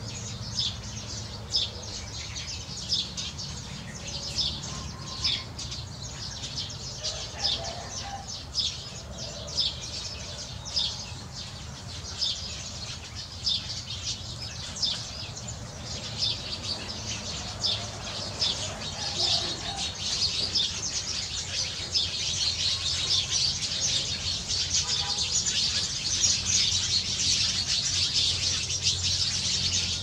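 A flock of small birds chirping in the trees: a dense chorus of short, high chirps that grows busier and louder over the last third.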